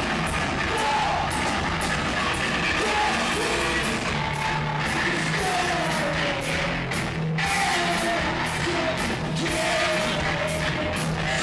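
Live alternative-metal band playing: electric guitar, bass and drums pounding steadily under sung and shouted vocals. The amateur recording is loud and crude.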